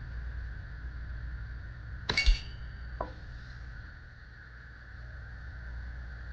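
Daisy Model 105 Buck BB rifle fires once, a sharp report about two seconds in, followed under a second later by a short metallic ping that rings briefly, over a steady background hum.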